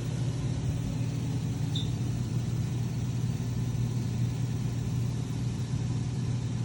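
Steady low mechanical hum of running equipment, with a brief faint high chirp about two seconds in.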